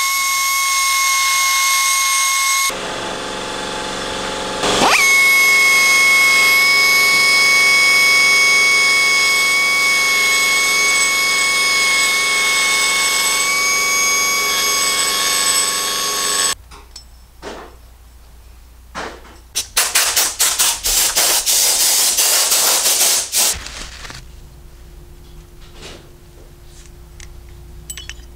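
Die grinder with a long-shank burr, grinding a clearance notch into a Harley M8's big-bore cylinder on the bike. It runs at a steady high whine, drops in pitch about three seconds in, spins back up, and cuts off sharply after about sixteen seconds. A few seconds later comes a run of loud hissing spurts, then light clicks near the end.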